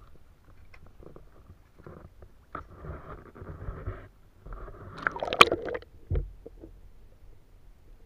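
River water sloshing and splashing around a camera as it dips in and out of the water beside a small boat, with the loudest splash about five seconds in and a dull thump just after.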